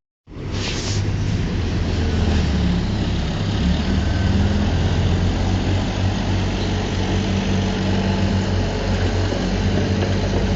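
Heavy diesel engine of earthmoving machinery running steadily, coming in just after a brief break in the sound.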